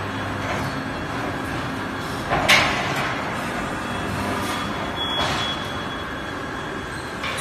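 Magnesium oxide board production line machinery running with a steady mechanical noise. A sharp metal clank comes about two and a half seconds in, and a lighter knock about five seconds in.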